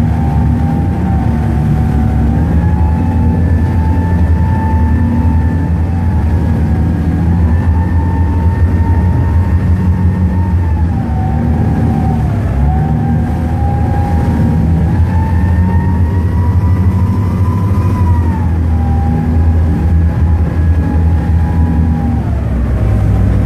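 A pilot boat's engines running hard, heard from inside the wheelhouse: a loud, steady low drone with a high whine that dips and recovers every few seconds as the load changes.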